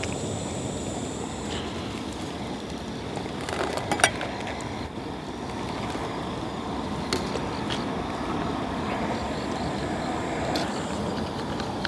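A stainless steel ladle serving goat stew from a wok into a bowl, giving a few sharp clinks about four, seven and ten and a half seconds in, over a steady rushing background noise.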